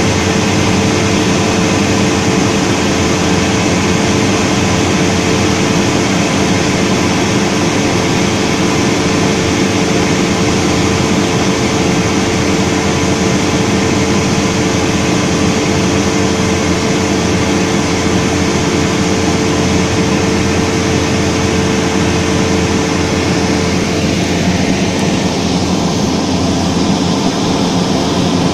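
Cessna 172D's six-cylinder Continental O-300 engine and propeller droning steadily in flight, heard inside the cabin: a loud, even hum of several steady tones over rushing air noise.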